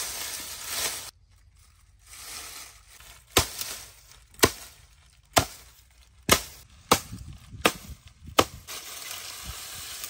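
Dry reed stalks rustling as they are handled, then a blade chopping through the bundled stalks to even them to length: seven sharp strikes, roughly one a second, starting about three seconds in.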